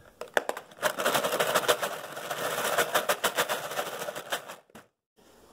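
Steel knitting-machine needles clattering against each other and a plastic box as a handful is loaded into it: a dense run of sharp rattling clicks for about four seconds, stopping suddenly near the end.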